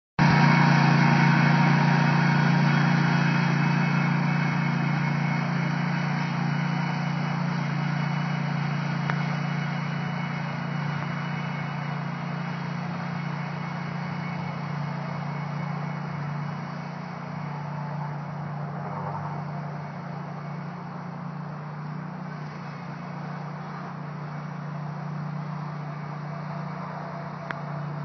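Commercial stand-on lawn mower's engine running steadily under load as it mows, fading gradually as the mower moves away.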